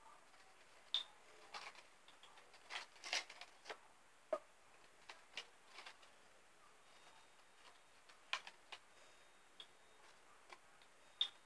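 Faint, irregular clicks and taps, a dozen or so spread unevenly, over a quiet room.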